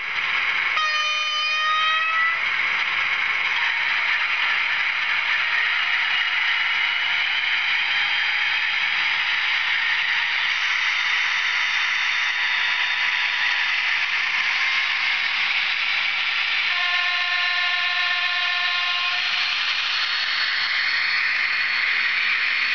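ESU digital sound decoder in a model BDZ class 07 diesel locomotive playing a running diesel engine sound through its small speaker, with two horn blasts: a short one about a second in and a longer one of about two and a half seconds past the middle. Near the end a rising whine comes up over the engine sound.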